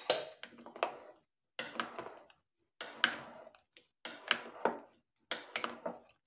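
White plastic spatula folding peas into a thick cream-and-mayonnaise salad in a large glass bowl: five stirring strokes about a second apart, each a short scrape and clink of plastic against the glass.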